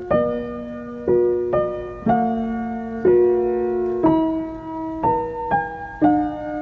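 Slow, gentle background piano music: a note or chord struck about once a second, each ringing and fading away.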